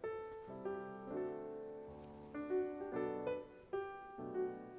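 Background music: a light keyboard melody of short notes over sustained chords.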